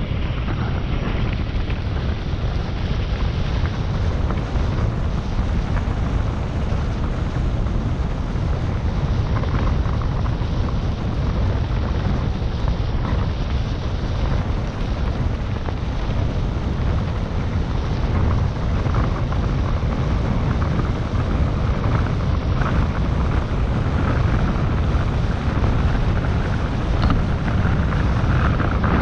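Wind rushing over an action camera's microphone, with tyres rattling over gravel, as a mountain bike rides fast along a rough dirt road. The noise is steady and loud, heaviest in the low rumble.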